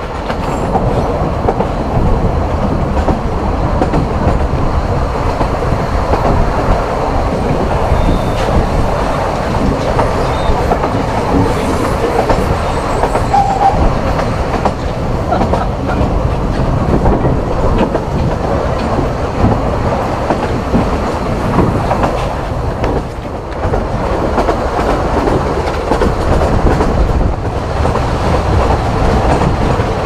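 Narrow-gauge steam train running on the rails, heard from inside an open-sided carriage: a steady, loud rumble and rattle of wheels and carriage.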